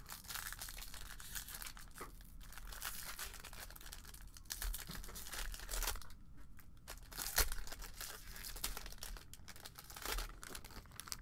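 Foil wrapper of a trading-card pack crinkling and tearing as it is pulled open by hand, in uneven rustling patches with a sharper, louder crackle about two-thirds of the way through.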